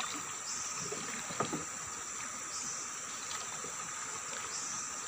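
Low water and boat sounds from a wooden longboat on a river, with a few small knocks, the clearest about a second and a half in. Behind them runs a steady high insect drone that swells about every two seconds.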